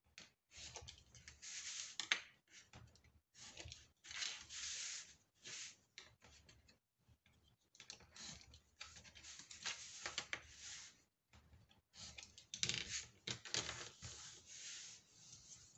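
Craft knife scraping through paper as the corners of a sheet are cut off along a corner template, in a series of short scratchy strokes with brief pauses between them, along with the rustle of paper offcuts being handled.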